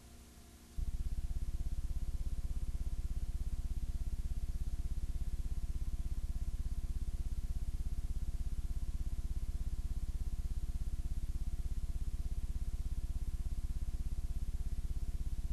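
A steady low electrical buzz on the audio track, which cuts in abruptly about a second in and then holds without change.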